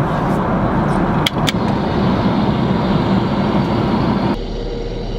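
Steady airliner cabin roar in flight, with a couple of sharp clicks about a second in. Near the end the roar drops abruptly and a faint steady hum comes in.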